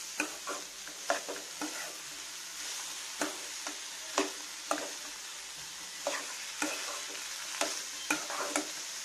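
Metal spatula stirring diced banana stem in a metal kadai, scraping against the pan in irregular strokes about once or twice a second, over a steady faint sizzle of the frying mixture.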